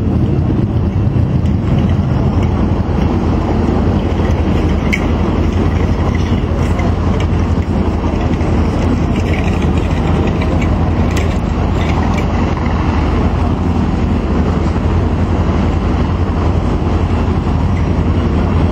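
F-22 Raptor's twin Pratt & Whitney F119 turbofans, a steady low jet rumble during its flying display, without a clear build-up or fade.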